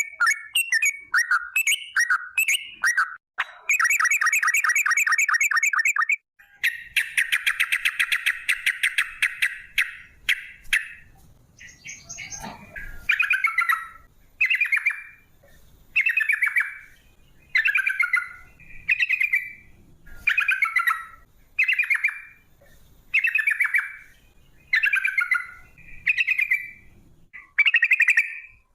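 Yellow-vented bulbul (trucukan) singing: quick chattering notes, then two long, rapid rattling trills in the first ten seconds, then a string of short, repeated phrases about every second and a half.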